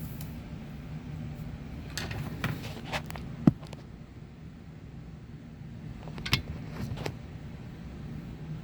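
A few sharp clicks and light knocks from small tools, screws and parts being handled while the front portal of an RC crawler axle is taken apart, the loudest about three and a half seconds in. A steady low hum runs underneath.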